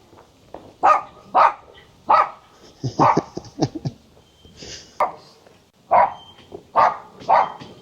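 A dog barking repeatedly, in short sharp barks about a second apart.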